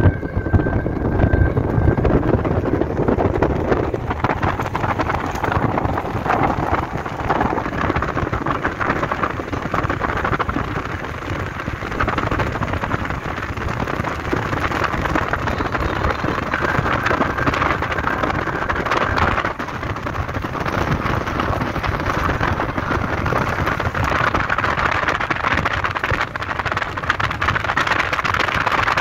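Steady road and wind noise of a car driving along a paved road, heard from inside the car.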